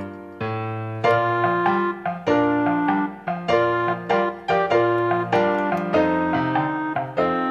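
Background piano music: a gentle melody of struck notes, about two a second, over low held notes.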